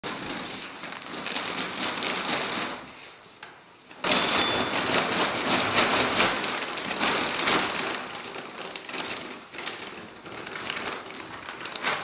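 Plastic shopping bag crinkling and rustling as laundry is pulled out of it and pushed into a front-loading washing machine, with a short lull about three seconds in.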